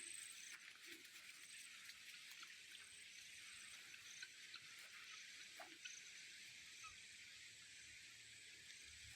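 Near silence: faint rural outdoor ambience, a steady high hiss with a few faint ticks.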